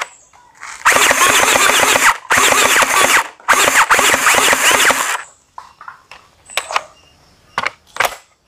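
HK416D gel blaster firing three bursts on full auto, each a second or more long, its electric gearbox whirring as it cycles. Near the end come a few separate clicks and knocks from handling the blaster.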